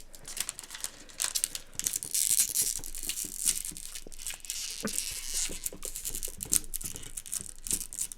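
Snack wrapper crinkling and rustling as it is handled, with small crackles and clicks throughout.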